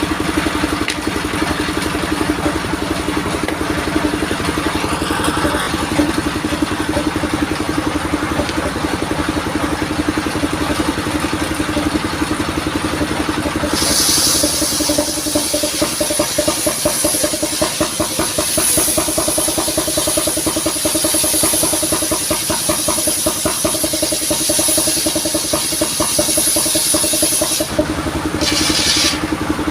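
Engine of a modified saw vehicle running steadily. About halfway through, the saw blade cuts into coconut wood and a high sawing sound joins the engine for about fourteen seconds. It then stops, briefly returns, and stops again.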